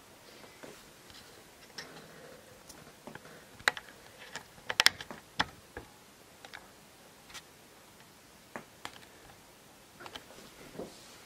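Sporadic light clicks and taps from drawing materials being handled, with a quick cluster of sharper clicks about four to five seconds in.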